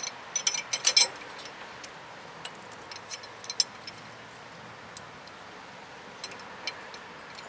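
Light clicks and taps from a steel brake line being bent in a hand tube bender: a quick cluster in the first second, then a few scattered single clicks.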